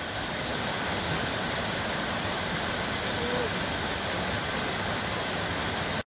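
Waterfall: a stream cascading down a rocky, wooded ravine in a steady rush of water, which cuts off suddenly near the end.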